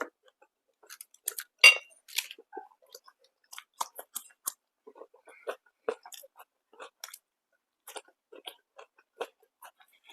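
A person chewing food close to the microphone: many short, irregular mouth clicks and smacks, with one louder bite about a second and a half in.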